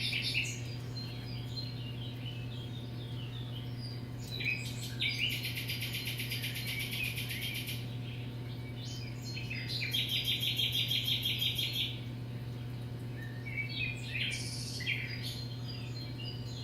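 Background birds chirping and singing, with two long, rapid trills of about three seconds each, the first a few seconds in and the second past the middle. Under them runs a steady low hum.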